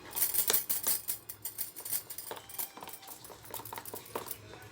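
Spoon working a thick batter in a bowl, with irregular clicks and taps of the spoon against the bowl, busiest in the first second.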